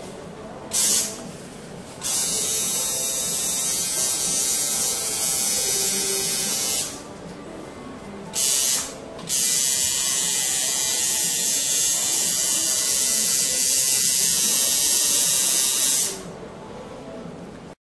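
Electric tattoo machine buzzing as it works on the skin, in two long runs of about five and seven seconds, with short pauses between them and two brief blips of the machine being switched on and straight off again.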